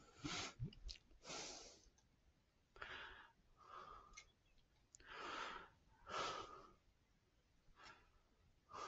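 Faint breathing, a series of soft breaths in and out about every second or so, with a few faint ticks between them.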